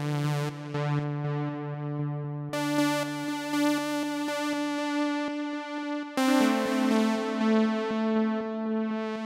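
Arturia JUN-6V software synthesizer, an emulation of the Roland Juno-6, playing its 'Cyberspace' preset. Sustained, rich chords change about two and a half seconds in and again about six seconds in, over a quick repeating pulse.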